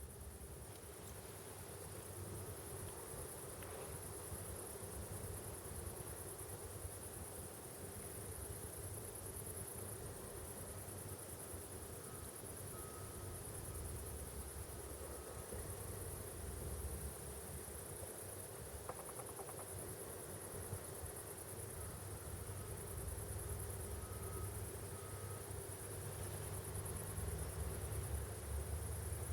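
Steady high-pitched chirring of insects, with a low rumble that slowly grows louder toward the end.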